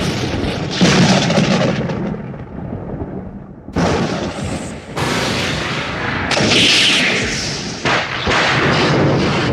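Sci-fi thunder and lightning sound effect: a run of sudden crackling lightning strikes, about six, each trailing off into rumbling noise.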